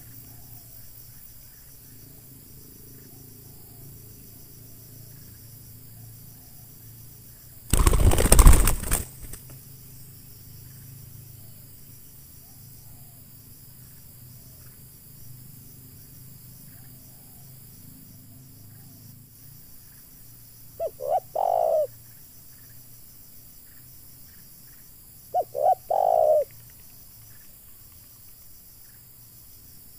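A spotted dove's wings clap in one loud burst lasting about a second as it takes off, about eight seconds in. Later a spotted dove coos twice, each call a short note followed by a longer coo.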